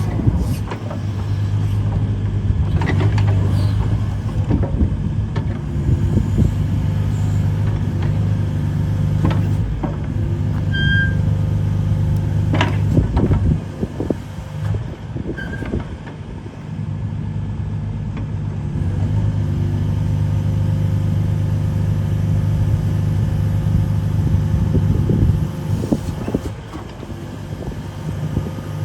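Diesel engine of a Hitachi ZX140W-3 wheeled excavator running steadily, with occasional clanks and knocks. The engine note dips briefly around the middle and again near the end.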